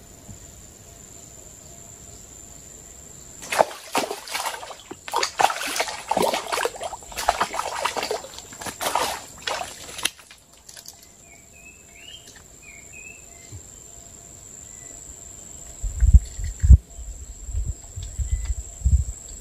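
Water splashing and sloshing in a run of uneven bursts for about six seconds, over a steady high insect drone. A few short bird chirps follow, and low thumps come near the end.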